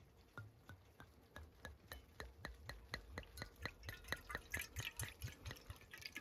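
Liquid glugging out of a bottle as it is poured: a faint run of evenly spaced soft clicks, about three a second at first and quickening to about five a second, brighter near the end.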